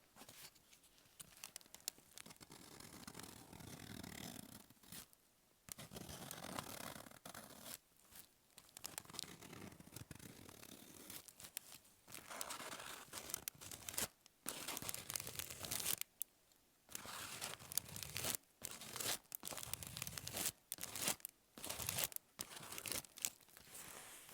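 Paper being torn by hand in a series of rips of varying length, with crinkling between them.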